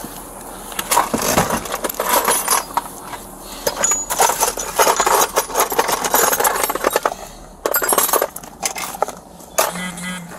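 Rummaging: a run of rustles, clicks and metallic clinks as objects are handled and moved about.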